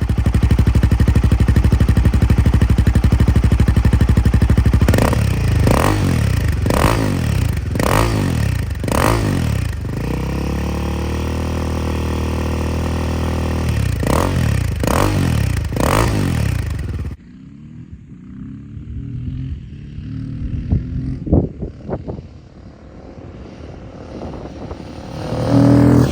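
Royal Enfield Himalayan 450's single-cylinder engine breathing through a Powerage de-cat pipe and aftermarket silencer: idling, then blipped five times in quick succession, idling again, blipped three more times, and switched off about 17 seconds in.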